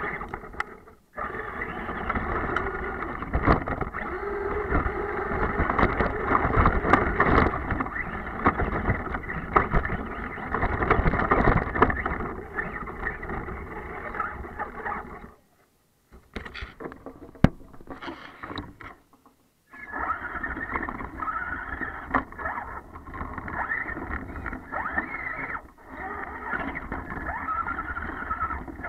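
Electric motor and drivetrain of a Traxxas E-Revo RC monster truck running, its tyres churning through snow, with scattered knocks and bumps. The sound cuts out twice for under a second each, a little past halfway, then picks up again.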